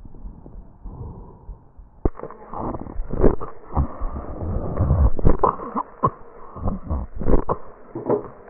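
Breath sounds over the trachea heard through an electronic stethoscope, full of short crackling clicks. They are quieter and more muffled at first and grow louder and busier about two seconds in, with several stronger swells.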